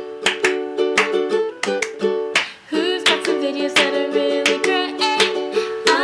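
Upbeat outro music: a bright tune of short plucked notes over a steady beat, with a gliding lead melody above.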